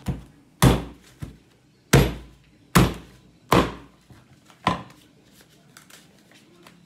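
A machete chopping through the stem ends of fresh corn ears into a wooden cutting board. About seven heavy chops come at an uneven pace, roughly one every 0.7 seconds, and they stop about five seconds in.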